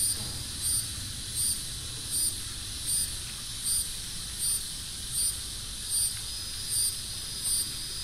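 Nature field recording played back: an insect chirping in a steady, even rhythm of short high-pitched pulses, about four every three seconds, over faint low background noise. The recording has had a passing plane's drone edited out.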